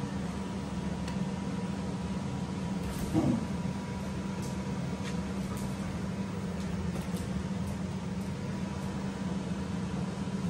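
Steady low hum with a faint high steady tone, a few faint ticks, and one short yelp falling in pitch from a dog about three seconds in.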